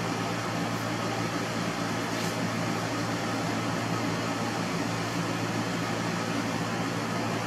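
Steady low mechanical hum with an even hiss over it, from a machine running in the workshop.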